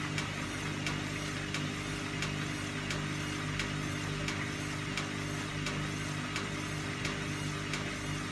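Engine running steadily at idle with a regular sharp click about three times a second.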